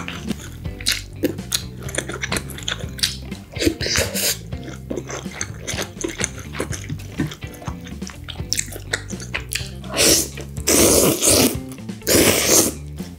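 Close-up wet chewing and mouth clicks from eating spaghetti in tomato sauce, then two long, loud slurps of noodles near the end.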